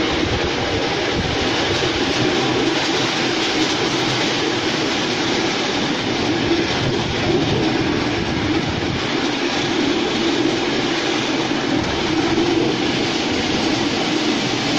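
Ride-on miniature railway train running steadily along its track, heard from on board: a continuous, even noise of the wheels rolling on the rails.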